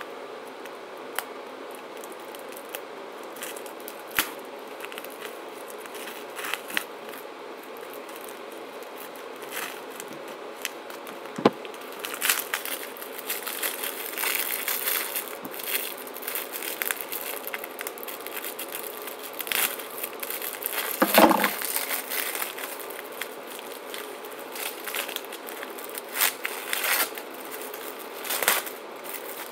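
Cellophane wrap on a brick of firecrackers crinkling and tearing as it is cut with a knife and stripped off, with scattered clicks and knocks. The crinkling grows busier about twelve seconds in, and the loudest handling noise comes a little past the middle.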